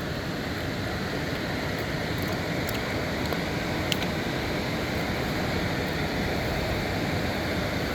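Water pouring over a small dam spillway: a steady, even rush, with two faint clicks about three and four seconds in.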